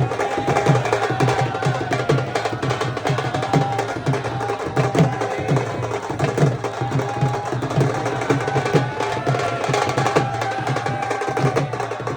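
Devotional Indian music: a quick, steady hand-drum beat with a sustained melody line held over it.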